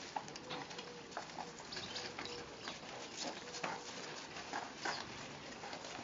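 Puppies tussling over a rubber clog on gravel: irregular scuffs, crunches and clicks of paws shuffling on loose gravel and the shoe being tugged about.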